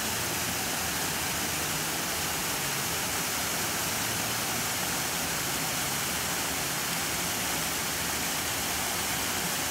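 Steady rushing splash of a decorative fountain's falling water.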